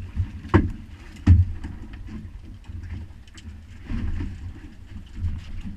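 Sharp knocks and thumps against the small fishing boat as a halibut is hauled over the side. The two loudest come close together about half a second and a second in, with softer ones later, over a steady low rumble of wind and water.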